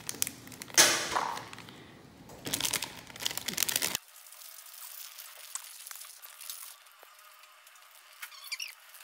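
A plastic Milo powder pack crinkling and rustling as it is handled and its powder shaken out into a bowl. There are a few noisy bursts in the first four seconds, then it goes much quieter.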